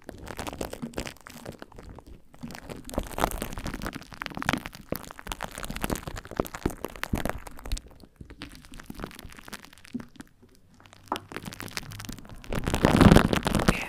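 Close-microphone ASMR handling sounds: a small plastic makeup container rubbed and tapped right at the microphone, giving dense, irregular crackles and clicks, with a louder rubbing swell near the end.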